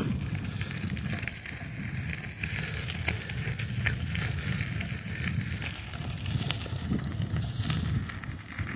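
A bicycle being ridden, heard from a hand-held phone: a steady, fluctuating low rumble of wind and tyre noise, with scattered small clicks and rattles from the bike.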